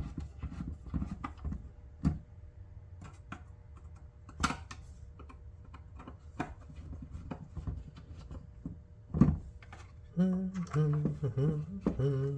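Small irregular clicks and knocks of hands handling plastic and metal parts of an opened electronic timer. About ten seconds in, a man starts humming in short held notes.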